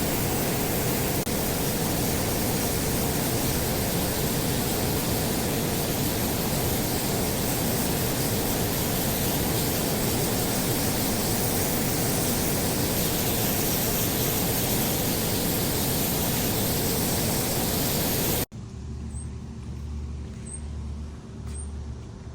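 Pressure washer spraying concrete: a steady loud hiss of the water jet over the machine's running. About eighteen seconds in it cuts off abruptly, leaving a quieter low hum with a slow pulsing beat and three short high chirps.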